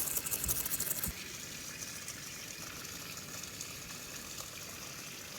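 Water draining out of the furnace's water jacket, a steady gushing rush. For about the first second it sputters unevenly before settling into a smooth flow.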